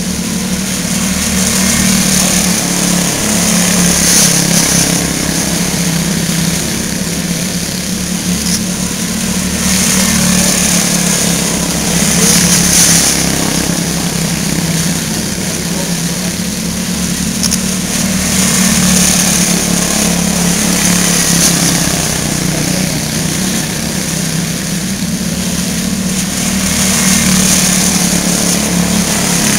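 Quarter midget race cars' small single-cylinder engines running around the track, a steady buzz that rises and falls as the cars come by every few seconds.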